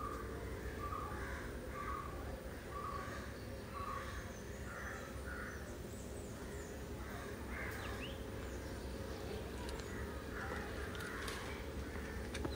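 Crows cawing: a run of short, harsh caws over the first five seconds, then a few more scattered later, with faint chirps of other small birds.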